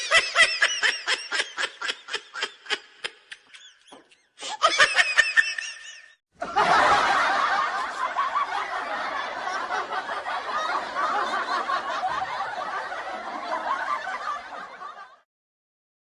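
Laughter sound effects: one voice laughing in rapid, even pulses that slow and fade over about four seconds, then a short burst of laughter. This is followed by about eight seconds of dense, overlapping laughter from several voices that cuts off suddenly.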